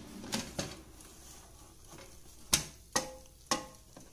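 Clacks from handling an air fryer's basket: two soft knocks near the start, then three sharp, louder clacks about half a second apart in the second half, the last two ringing briefly.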